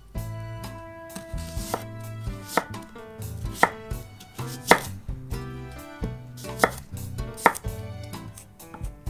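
Henckels chef's knife cutting through raw Japanese turnips (kabu) and striking a hinoki wood cutting board, about six sharp chops a second or so apart. Soft background music plays underneath.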